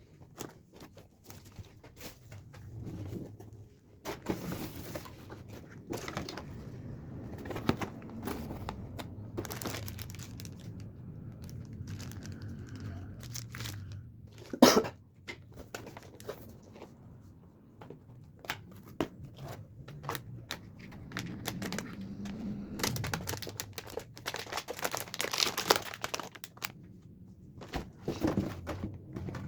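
Handling noise: crinkling and rustling with many scattered clicks and knocks, one sharp loud knock about halfway through, and a denser stretch of rustling near the end.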